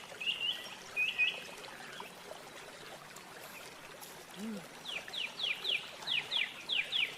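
A bird chirping: a few short high chirps near the start, then a quick run of about ten descending notes in the second half.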